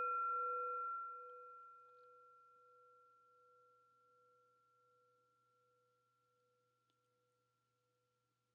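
A meditation bell ringing out after a single strike, its low tone pulsing slowly over a few clear higher tones, fading away to nothing about seven seconds in. It is the first of three rings that open a meditation.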